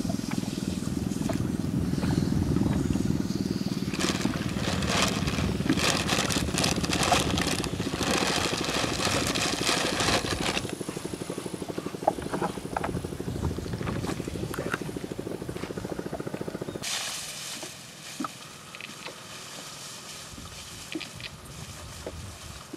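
Small engine running steadily with an even pulse, easing off about ten seconds in and dropping away about seven seconds later, leaving only a faint background with a few light clicks.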